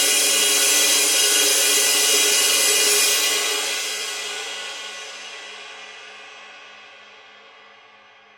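Cymbal sound effect: a dense, bright cymbal wash holds loud for about three seconds, then dies away slowly and evenly, the top end fading first.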